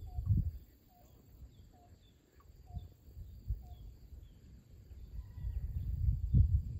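Gusty rumble of wind on the microphone, swelling loudest near the end, with a bird calling a short repeated note about once a second through the first few seconds.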